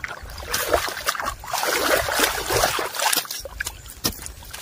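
Hand hoes chopping and dragging through wet mud in a flooded paddy field, with muddy water sloshing and splashing, loudest from about half a second to three and a half seconds in.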